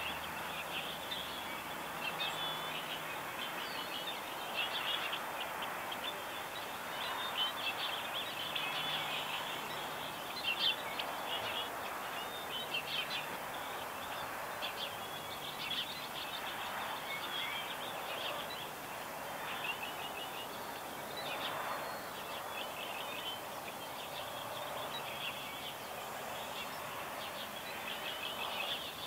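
Dawn chorus of small birds: many short, rapid chirps and song phrases overlapping, over a steady background hiss of outdoor noise.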